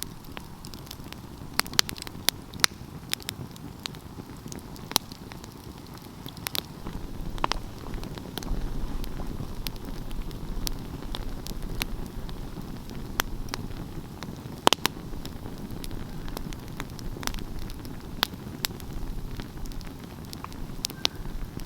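Wood fire burning with a steady low rush of flames and irregular sharp crackles and pops, one pop standing out loudest around the middle.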